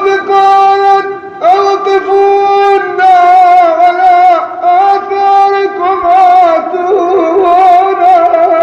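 A man's voice chanting a melismatic Arabic religious lament. He holds long notes and decorates them with wavering, rapid ornaments, with no clear words.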